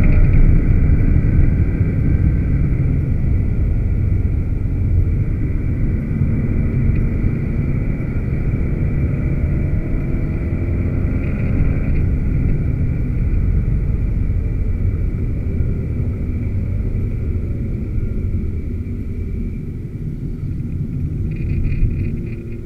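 Aston Martin V12 Vantage's V12 engine running hard at speed, with tyre and road noise, heard from inside the cabin as a loud, steady low drone.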